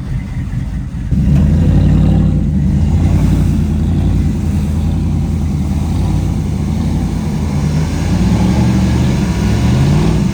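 Truck engine revving hard. It gets much louder about a second in and rises and falls in pitch toward the end.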